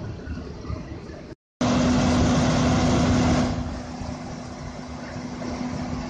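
Idling vehicle engine with a steady hum, broken by a brief dropout about one and a half seconds in; for about two seconds after it a louder rushing noise covers the engine, then settles.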